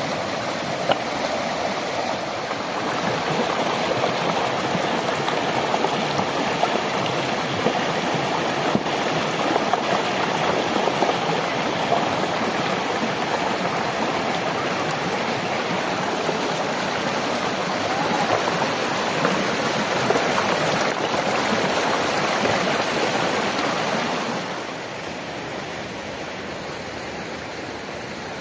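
Flowing river water, a steady rushing noise that drops noticeably in level about three-quarters of the way through.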